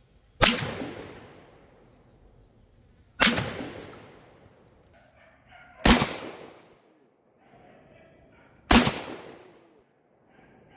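Four shots from a Sulun Arms SG105 12-gauge semi-automatic bullpup shotgun, fired at an even pace about two and a half seconds apart. Each shot rings out and fades over about a second.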